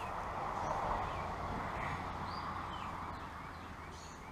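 Tall open flame of wax-dipped tinder burning with a steady rushing noise that swells in the first couple of seconds and then slowly fades.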